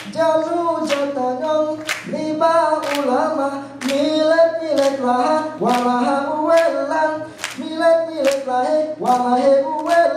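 Rapai Geleng dance troupe singing a cappella in unison, a rhythmic Acehnese chant, punctuated by sharp group hand claps about once a second.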